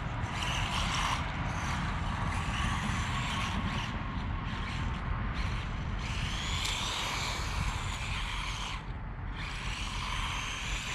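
Small brushed 380 electric motor of a 1/18 RC truck whining as the truck is driven at speed, the whine rising and falling with the throttle and dropping away briefly about nine seconds in, over a steady low rumble.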